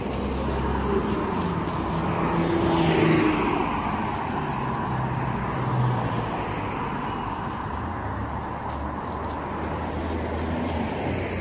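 Road traffic on a city street, a steady rumble of cars, with one car passing close by about three seconds in.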